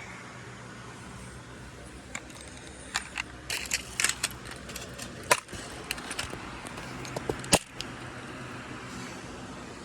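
Steady in-car engine and road hum from a car being driven. A scatter of sharp clicks and knocks runs through the middle, loudest about five and seven and a half seconds in.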